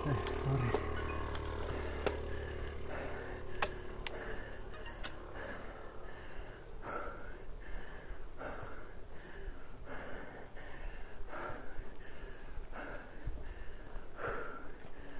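A cyclist breathing hard and rhythmically while pedalling up a steep climb, a heavy breath about every second and a half. A few sharp clicks and the tail of background music come in the first seconds.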